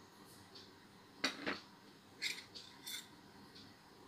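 Light metal clinks and taps against a stainless-steel mixer-grinder jar holding flour: about four short knocks between one and three seconds in.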